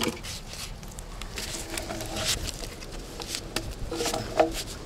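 Footsteps crunching over dry twigs, fallen poles and leaf litter on a forest floor, with a run of small crackles and one louder crack near the end.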